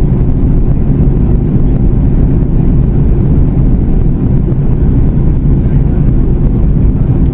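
Steady in-flight cabin noise of a Boeing 737 MAX 8-200: a loud, even rumble of its CFM LEAP-1B engines and the airflow past the fuselage.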